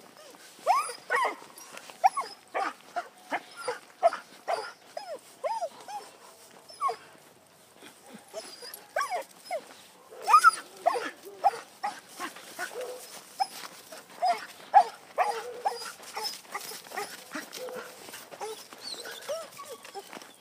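Dog whining and yelping excitedly over and over, short rising-and-falling cries coming once or twice a second, with a brief lull partway through. It is straining on its leash to reach another dog.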